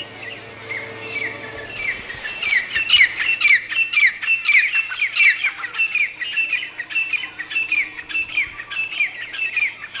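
Grey francolin calling: a long run of high, down-slurred notes, about two a second, starting about two seconds in and loudest a second or so later.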